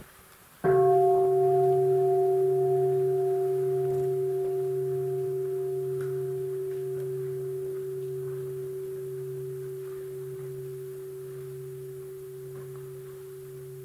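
A Buddhist bowl bell struck once, ringing with a low pulsing hum under several higher steady tones that fade slowly and are still sounding at the end. It is the bell of mindfulness, invited between questions.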